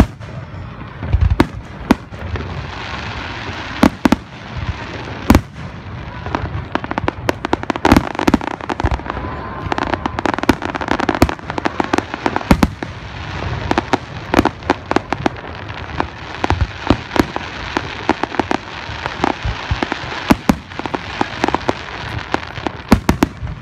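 Aerial fireworks shells bursting in sharp booms. The booms are spaced out for the first few seconds, then come thick and fast in a rapid barrage from about seven seconds in, over a continuous hiss.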